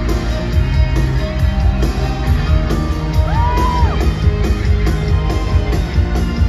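Theatre pit band playing loud, upbeat music with a heavy steady beat. About three seconds in, a single high whoop rises and falls over it.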